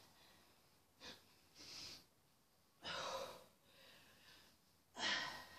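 A woman breathing hard while holding a plank: short, noisy breaths in and out, roughly one every one to two seconds, with no voice in them.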